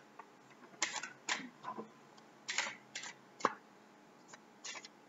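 A deck of oracle cards being shuffled by hand: a string of about seven short, sharp card slaps and snaps at uneven intervals.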